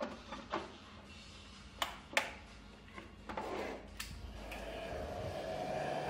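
Retractable cord reel on a hair dryer being worked by hand: a series of sharp clicks and a short sliding rasp as the cord is pulled out and its self-locking catch engages. A steady hum builds up near the end.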